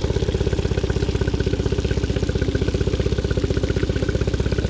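Mercury 15 HP EFI four-stroke two-cylinder outboard idling steadily with a fast, even pulse, run out of the water on a fresh-water flush and left at idle rather than revved.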